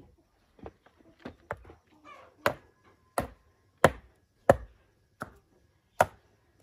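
Sharp knocks of stone striking stone, about a dozen in an uneven rhythm, the loudest ones roughly two-thirds of a second apart in the middle: a rock being knocked into place in a dry-stone retaining wall.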